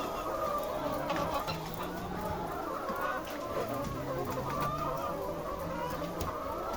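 Many laying hens clucking together in a dense, continuous chorus of overlapping calls.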